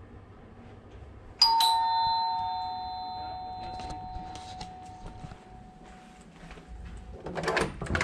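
Hotel room doorbell chime: two quick notes, high then lower, about a second and a half in, ringing on and slowly fading over several seconds. It signals someone at the door. A short burst of noise follows near the end.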